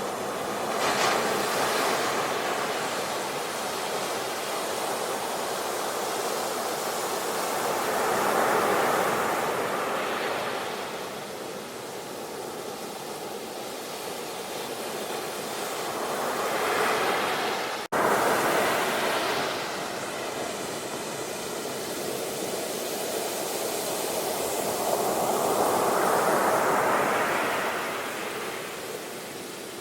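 Sea waves breaking and washing up the shore in slow swells, about one every eight seconds, with a brief cut in the sound about eighteen seconds in.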